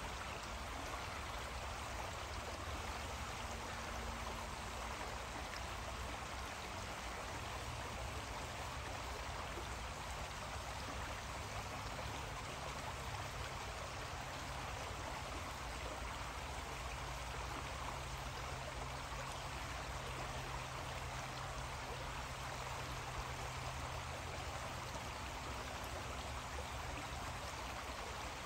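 Creek water running steadily: an even rushing hiss with no breaks. A faint low hum sits underneath and grows a little stronger about halfway through.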